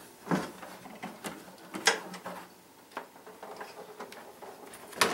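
Pinball machine back glass being unseated and lifted out of its backbox: a few sharp clicks and knocks of the glass and its frame, spread out with quieter handling between.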